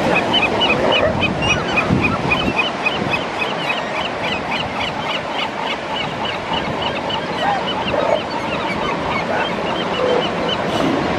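Steady wash of surf with a bird calling in a rapid, even series of short high chirps, about four a second, that stops near the end.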